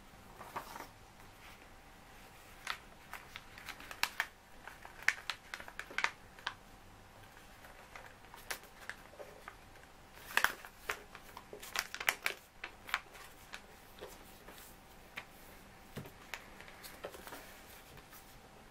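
A sheet of printer paper being folded and creased by hand on a table: irregular crisp crackles and rustles as the paper is turned, flattened and pressed, with clusters of sharper crackles about four to six seconds in and again around ten to thirteen seconds in.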